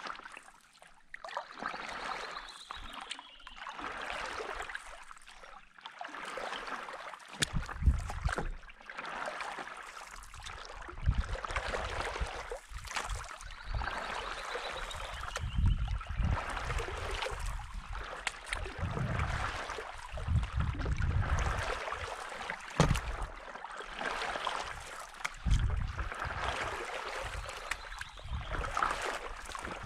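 Paddle board paddle dipping and pulling through calm water in repeated strokes, with splashing and dripping, while gusts of wind now and then rumble on the microphone.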